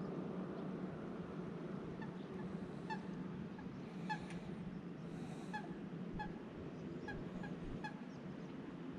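A waterbird on the lake giving a series of short, clipped calls, about one or two a second, starting about two seconds in and stopping near the end, over a steady low background rush.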